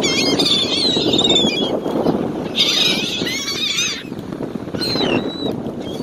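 A flock of gulls calling: bouts of high, wavering, overlapping squawks, one at the start, one in the middle and a shorter one near the end, over a steady rush of background noise.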